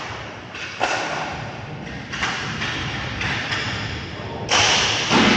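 Roller hockey play echoing in an arena: a run of sudden knocks and thuds from sticks and the puck, the loudest near the end.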